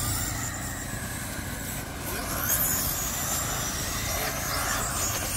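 Radio-controlled dirt-oval sprint cars racing, with a high whine from their motors that rises and falls as the cars go around, over a steady low rumble.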